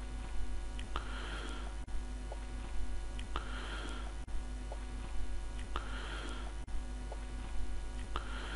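Steady low electrical hum and hiss from the recording setup, with a faint click followed by a soft swish repeating about every two and a half seconds.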